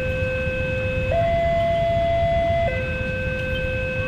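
Railway level-crossing warning alarm, a two-tone electronic signal alternating low, high, low, each tone held about a second and a half, sounding while the barrier is down for an approaching train. A steady low rumble of road traffic lies underneath.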